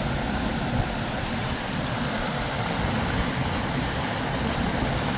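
Steady rushing of a river's flowing water, an even noise without breaks.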